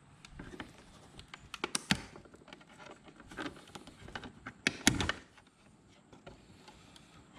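Small flat screwdriver prying plastic mirror glass out of a 2008 Jeep Grand Cherokee's power side-mirror housing: scattered plastic clicks and taps, with a cluster of sharper snaps about two seconds in and the loudest snap about five seconds in as the glass pulls free of its mount.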